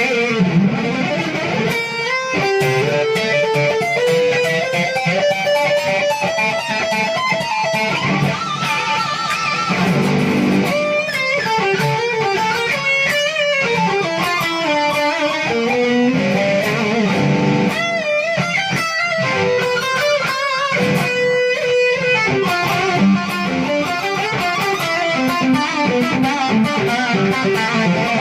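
Electric guitar playing a melodic line of sustained notes, some bent or wavering with vibrato.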